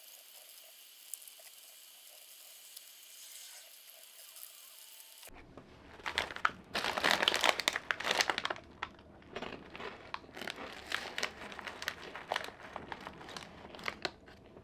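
Faint steady hiss, then, about five seconds in, a small plastic snack bag of Goldfish crackers crinkling as a hand reaches in and rummages through it. The crinkling is loudest for a couple of seconds, then goes on in short scattered rustles.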